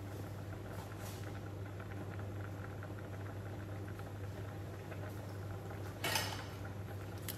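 Quiet kitchen room tone with a steady low hum and faint scattered ticks. A short rustling noise comes about six seconds in.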